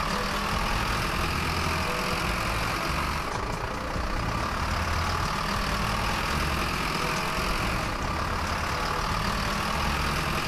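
Truck engine running steadily, the engine sound for a toy tow truck towing a derailed toy train. The level dips slightly every few seconds, as in a repeating loop.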